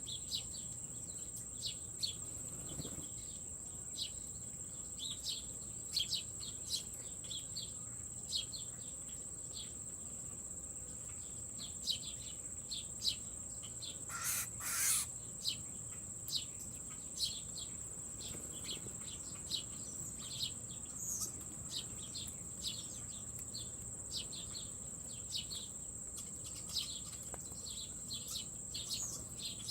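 A steady high-pitched insect drone, like crickets or katydids, with many short bird chirps scattered over it and one louder bird call about halfway through.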